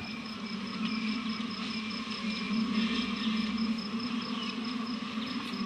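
Recorded buzzing of disturbed African honeybees played back through a speaker: a steady, slightly wavering buzz, with a high pulsing trill and faint chirps in the background.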